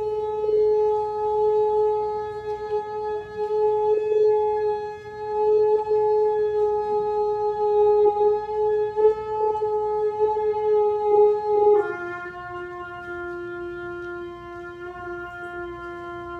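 A shofar sounding one long held blast at a steady pitch. About twelve seconds in it drops without a break to a lower, softer held note.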